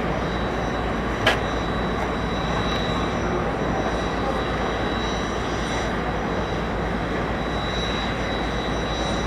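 Steady noise of a jet aircraft engine running, with a thin high whine held throughout. A single sharp click about a second in.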